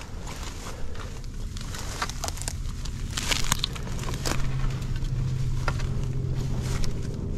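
Footsteps crunching and scraping on rocky, brushy ground, most busily a few seconds in, over a steady low rumble.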